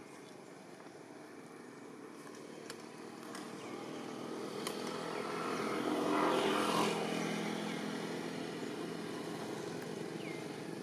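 An engine passing by: it grows louder, is loudest about six seconds in, then slowly fades.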